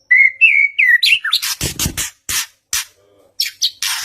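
White-rumped shama (murai batu) singing: a few clear whistled notes that wobble around one pitch, then a quick run of harsh, rasping notes. There is a brief pause, followed by more harsh notes and a rising whistle.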